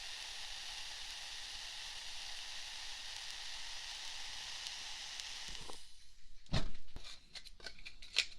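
Ear candle burning close against a binaural microphone's ear, giving a steady sizzling hiss that cuts off suddenly about six seconds in. It is followed by a run of sharp, crisp clicks and crinkles near the ear.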